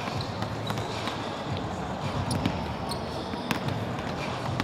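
Several basketballs bouncing on a hardwood court, with irregular, overlapping thuds from more than one ball at a time, over a steady background hubbub.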